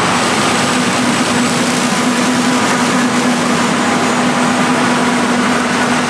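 Combine harvester running close by while harvesting corn: a steady mechanical noise with an even low hum underneath.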